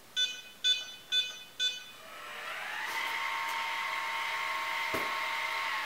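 Four quick beeps from the iOptron ZEQ25GT hand controller as its keys are pressed, then the mount's motors start a slew with about 10 pounds of telescope on board: a whine that rises in pitch for about a second and then holds steady, with a light click about five seconds in. It is a single tone, because the RA and declination worm and ring gears are the same size.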